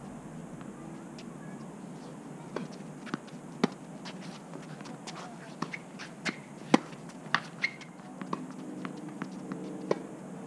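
Tennis balls struck by rackets and bouncing on a hard court in a rally: a series of sharp pops at uneven spacing, the loudest about 3.5 and 6.5 seconds in.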